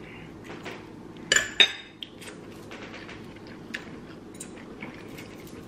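A metal fork clinking against a ceramic bowl: two sharp clinks in quick succession about a second and a half in, followed by a few lighter taps.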